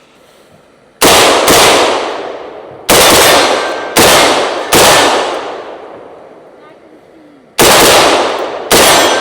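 American Tactical Milsport AR-15 in 5.56 with an Ultradyne Apollo Max muzzle brake firing seven semi-automatic shots in uneven groups: two close together, one, two, then two more. Each loud crack trails off in a long echo.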